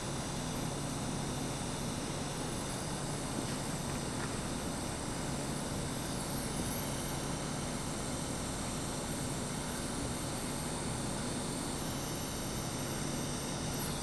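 Steady workshop background noise: a low hum with an even hiss and a faint wavering high whine, without distinct knocks or pauses.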